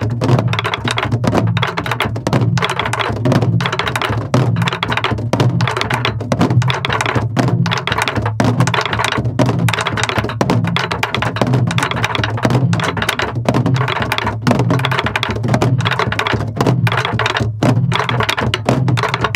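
Sori-buk, the Korean pansori barrel drum, played by a whole class at once. The rhythm is fast and continuous: low booms from the drumheads mixed with sharp stick clicks on the wooden shell. The strokes are kept light and evenly subdivided, as a drill in taking the force out of the 'deong' stroke.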